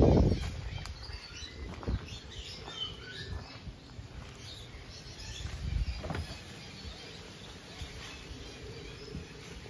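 Footsteps on soil and fallen leaves as a person walks, a loud low thump right at the start and a few sharper knocks along the way, with faint small bird chirps behind.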